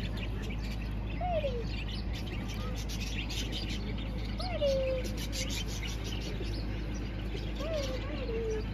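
A flock of budgerigars in an aviary chattering continuously in rapid high chirps, with a few lower falling calls in between.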